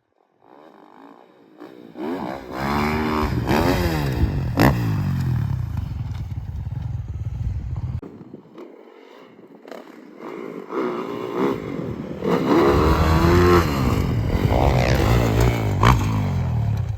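Dirt bike engine revving hard, its pitch swinging up and down, then easing off for a couple of seconds in the middle before revving hard again. A sharp knock cuts through each of the loud stretches.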